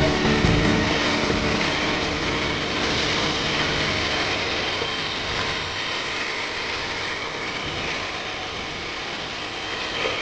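Electric hand mixer running steadily, its beaters whirring through cake batter in a plastic bowl.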